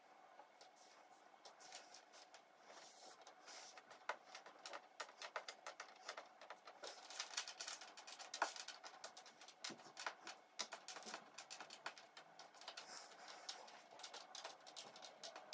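Jigsaw puzzle pieces clicking and sliding on a tabletop as a hand picks them up and sets them down one by one: a run of soft, quick taps, busier from a few seconds in.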